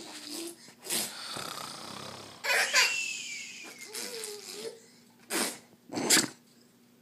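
Playful fake snoring between a man and a toddler: a string of short, noisy snorts and breathy bursts with a small child's giggles and squeals between them, the loudest about halfway through.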